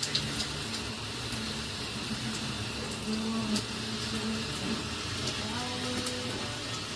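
Water spraying steadily from a handheld shower head, an even hiss of spray with faint low tones coming and going underneath.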